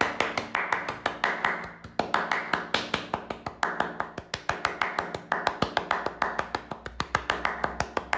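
Rapid, even tapping, about six taps a second, with a low steady hum underneath.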